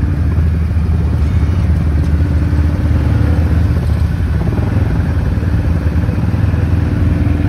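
ATV engine running at a steady speed.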